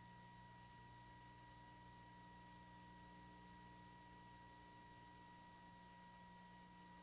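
Near silence: the faint steady hiss and hum of a VHS tape transfer, with a thin steady high tone running under it.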